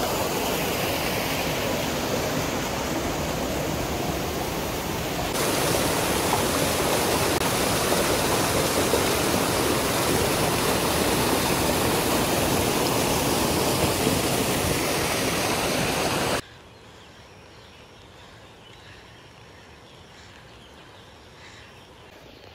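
Water of the Netravati river's headwater stream rushing and splashing over rocks in a small cascade into a pool, loud and steady, shifting in tone about five seconds in. The water sound cuts off suddenly about sixteen seconds in, leaving a much quieter background.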